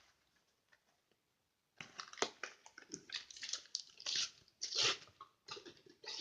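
Plastic blister packaging being torn open, crinkling and crackling in a dense run of sharp crunches that starts about two seconds in.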